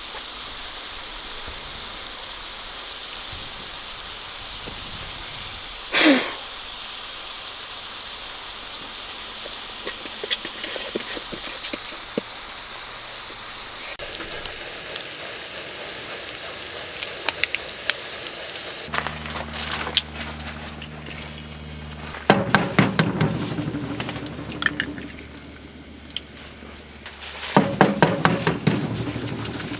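Food frying in a pan with a steady sizzle, a brief sliding squeak about six seconds in. In the second half a low steady hum comes in, and a spatula scrapes and clatters against the pan in two loud spells near the end.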